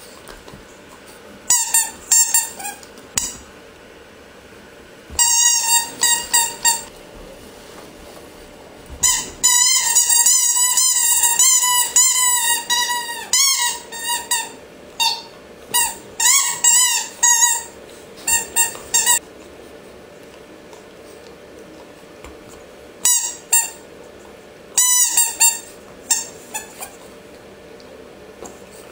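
A squeaky chew toy squeaking in quick runs as a French bulldog chews on it. The squeaks come in several bursts with pauses between them, and the longest run lasts several seconds near the middle.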